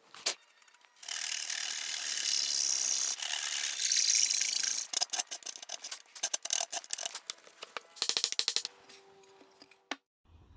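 A hand tool rubbing and scraping on wood. There is a few seconds of steady rasping, then a run of quick, separate strokes.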